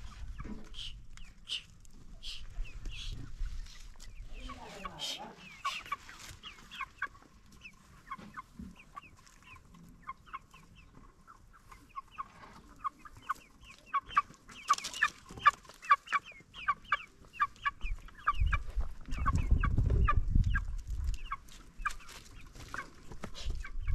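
Chickens clucking in a rapid run of short, sharp calls, thickest and loudest in the middle. A low rumble comes in for a couple of seconds near the end.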